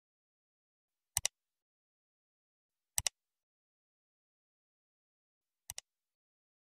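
Three computer-mouse click sound effects, each a quick double click, with silence between; the third is softer.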